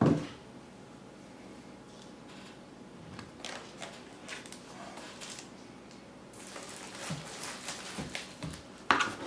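Cardboard and packaging being handled as a laptop is lifted out of its box: a thump right at the start, then light taps and rustles, a stretch of crinkling rustle from about six seconds in, and a sharp knock near the end.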